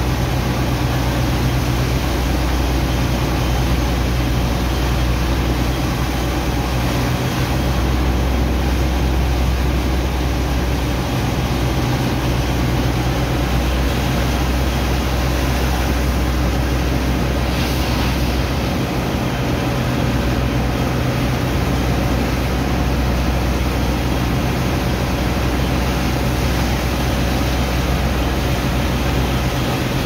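Heavy pump engine of a sand dredger running at a steady low drone. High-pressure water jets from hoses hiss and splash into wet sand slurry.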